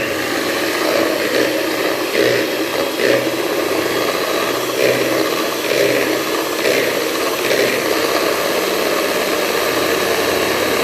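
Electric hand mixer running steadily, its beaters whipping eggs in a bowl until they turn frothy.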